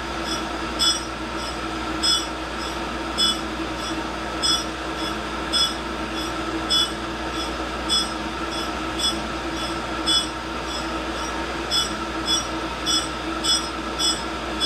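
Tool and cutter grinder running with a steady hum and whine, while short scraping grinding bursts repeat about once a second as the workpiece is run back and forth across the wheel. The bursts come quicker near the end.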